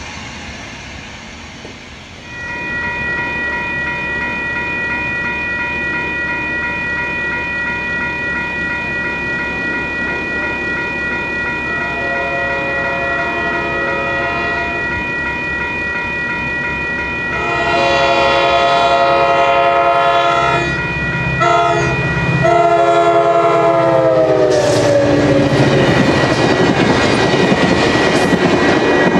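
A Coaster commuter train approaches and passes, sounding its horn, which starts about halfway in, grows loud in long blasts with short breaks, and drops in pitch as the train goes by. In the last few seconds the rumble and wheel clatter of the passing train take over, with a steady, evenly pulsing ringing of grade-crossing bells underneath.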